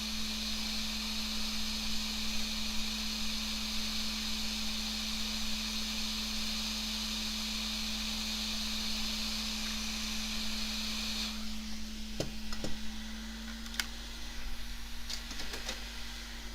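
Hot air rework station blowing with a steady hiss, which cuts off suddenly about eleven seconds in; a few light clicks follow, with a steady hum underneath throughout.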